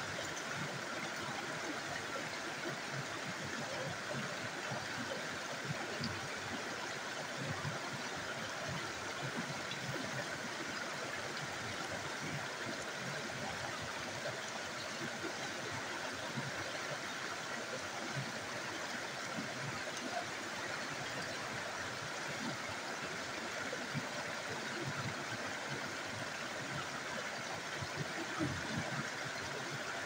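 Steady rushing of a small rocky stream, water spilling over rocks in a little cascade, constant throughout.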